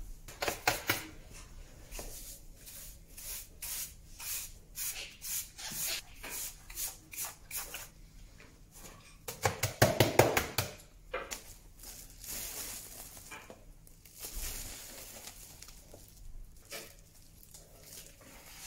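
Sawdust being swept up with a brush into a plastic dustpan and tipped into a plastic tub: a quick series of short scraping, brushing strokes, with a cluster of louder knocks about ten seconds in.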